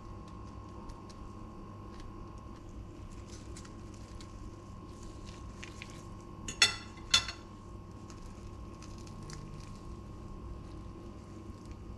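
Two sharp clinks of metal cutlery against a ceramic plate, about half a second apart, a little past halfway, with a few faint taps of food being handled over a steady electrical hum.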